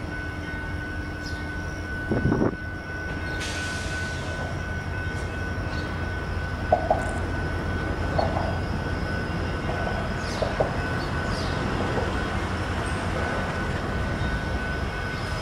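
Union Pacific diesel locomotives running as they haul a freight train slowly past, with a steady low engine rumble. A brief louder sound comes about two seconds in, and a short hiss follows a second later.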